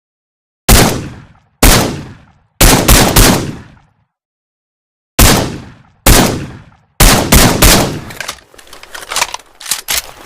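Heckler & Koch SL8 .223 semi-automatic rifle fired with a suppressor: about eleven sharp shots in irregular groups of one to four, each dying away in a short echoing tail, followed near the end by quieter irregular clatter and clicks.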